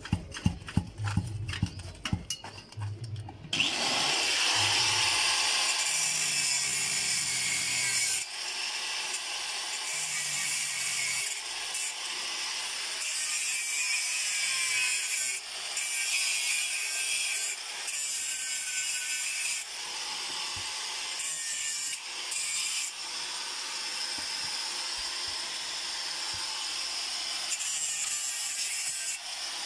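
Metalwork on a steel car-seat frame: a run of sharp metal knocks for the first three seconds or so, then a harsh, steady hissing in stretches of a few seconds with short breaks between them.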